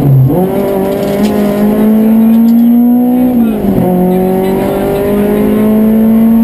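Citroën Saxo rally car's four-cylinder engine heard from inside the cabin, pulling hard with its pitch climbing steadily. About three and a half seconds in, the pitch drops sharply at an upshift, then climbs again under full acceleration.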